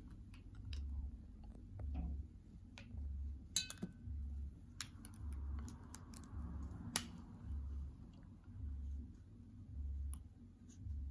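Plastic felt-tip marker caps clicking and markers being handled, several sharp clicks scattered through, over a soft low thump about once a second.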